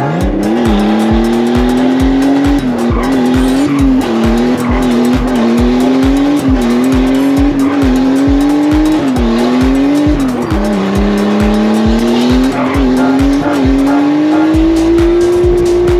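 Nissan Skyline R34 drift car's engine revving up and down repeatedly as it slides in circles, with tyres squealing. A music track with a steady thumping beat plays under it.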